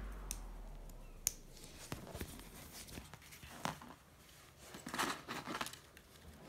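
Plastic LEGO Technic pieces being handled and fitted together: scattered faint clicks and light rattles, with a denser cluster about five seconds in, as the tail of the background music dies away at the start.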